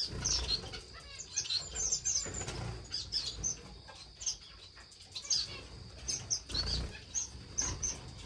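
Small finches chirping in a bird room, with many short high calls and wings fluttering now and then.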